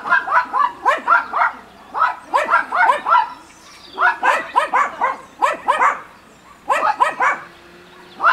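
A dog barking hard in quick runs of four to six barks, with short pauses between the runs. A faint steady tone comes in near the end.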